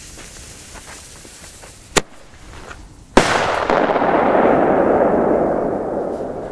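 Two firecrackers going off: a sharp bang about two seconds in, then a much louder bang about a second later whose echo rolls back off the surrounding hills and fades over about three seconds.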